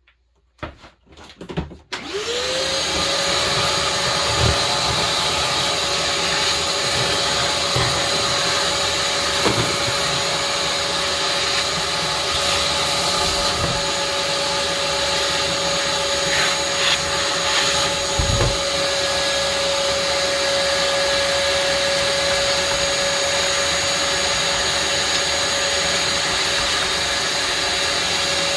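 Vacuum cleaner switched on about two seconds in, its motor whine rising quickly to a steady pitch, then running steadily with a few light knocks.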